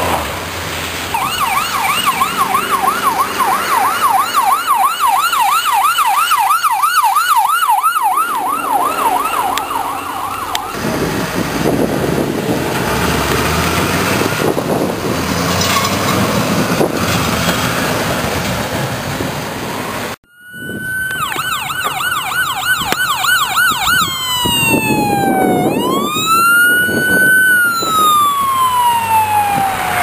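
Emergency vehicle sirens over road and engine noise. A fast warbling yelp runs for about the first ten seconds, then only road and engine noise for about ten seconds. After a brief dropout, an ambulance siren comes in with a fast warble and switches to a slow wail that falls and rises.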